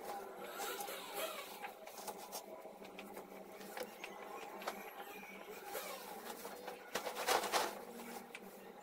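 Cotton bed sheets rustling as they are pulled over a mattress and handled, with scattered small clicks and a louder swish about seven seconds in as bedding is flung onto the bed. A steady faint hum runs underneath.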